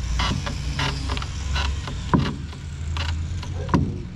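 Hand tool cutting into the seam between an old and a new wooden rail piece: a series of short scraping strokes about every half second, with two louder strokes, one in the middle and one near the end, over a steady low hum.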